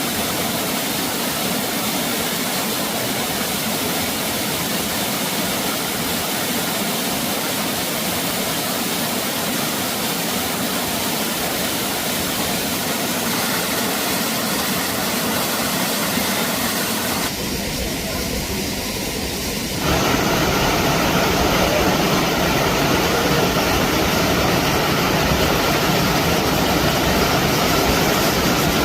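Steady rush of a waterfall. It changes abruptly about seventeen seconds in and grows louder and deeper from about twenty seconds in.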